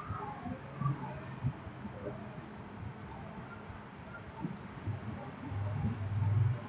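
Computer mouse clicking every second or so, several clicks coming in quick pairs like double-clicks, over a low steady hum that grows louder near the end.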